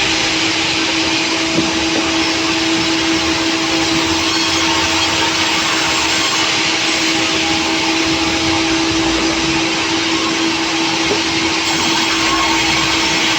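Sawmill saw machinery running steadily and loudly, a constant hum with a steady whine over it.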